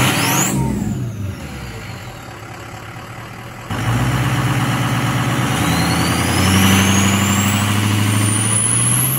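Ford Super Duty pickup engine running as the truck creeps forward. A short whoosh at the start; then, about four seconds in, the engine note steps up suddenly and climbs in pitch, with a high whistle rising slowly toward the end.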